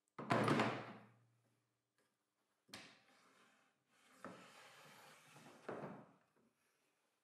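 The aluminium rip fence is set onto the table saw's metal fence rail with a loud clunk that rings briefly. A second, smaller knock follows, then a scraping slide along the rail with two more knocks as the fence's locking lever is worked.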